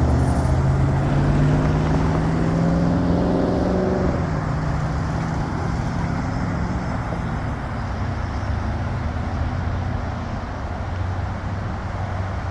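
Road traffic at an intersection: a vehicle engine is heard accelerating, rising slightly in pitch for the first few seconds, then fades into a steady low traffic hum.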